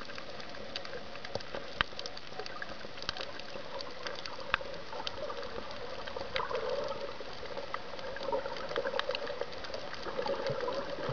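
Underwater sound picked up by a camera in the sea: a steady water hiss scattered with sharp clicks and crackles, and a rushing sound that swells a few times, most strongly near the end.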